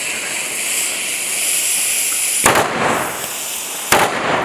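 Firecrackers going off: a steady hiss, then two sharp bangs about a second and a half apart, each trailing off.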